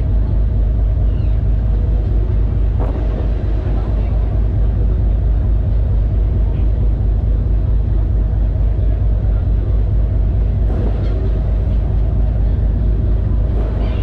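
Passenger ferry under way, its engine giving a loud, steady low rumble, heard from the open deck.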